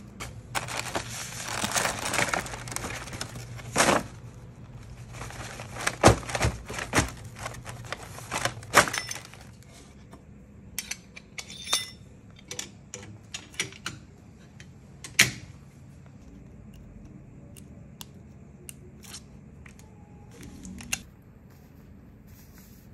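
Die-cut paper sheets being pulled apart and stripped of their waste: dense rustling and tearing of paper with several loud sharp snaps for about the first nine seconds. After that come scattered light clicks and one louder click as the parts of a platen letterpress are handled.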